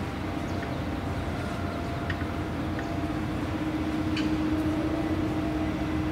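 Steady distant machinery drone, engine-like, with a hum that grows a little stronger about halfway through, and a few faint clinks.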